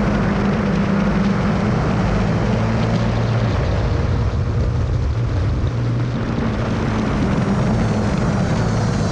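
Motorcycle engine running hard at track speed, mixed with heavy wind rush over the microphone; the engine note shifts as the bike speeds up and then slows again toward the end.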